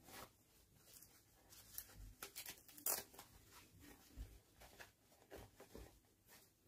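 Quiet handling sounds: a small fabric doll dress rustling and plastic fashion dolls clicking and tapping as they are picked up and moved, with scattered short clicks and the sharpest one about three seconds in.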